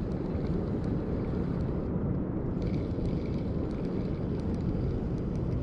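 Steady low rumble of wind buffeting the microphone, with a few faint light ticks here and there.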